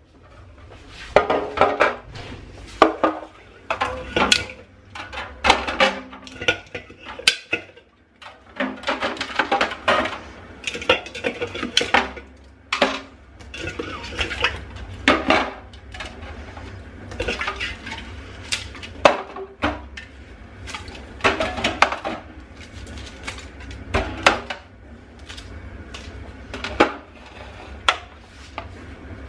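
Dishes and cutlery being handled, clinking and knocking against each other in quick, irregular strikes, over a steady low hum.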